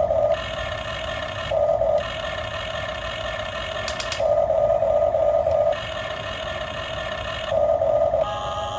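Electric motors and gearboxes of a toy RC backhoe loader whining steadily, growing louder for a second or so several times. A few quick clicks come about four seconds in.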